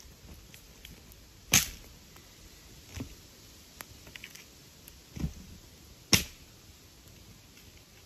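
Small campfire of kindling sticks burning, the wood crackling with a few sharp pops: two loud cracks, about a second and a half in and about six seconds in, with softer pops and ticks between them.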